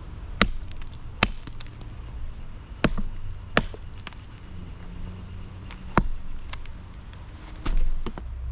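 Axe chopping into a log: a handful of sharp, irregularly spaced strikes of the axe head biting into the wood.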